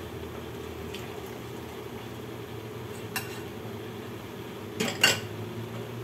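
Kitchen cookware and utensils clinking: a faint knock about a second in, another a couple of seconds later, and two sharp clanks close together near the end, over a steady low hum.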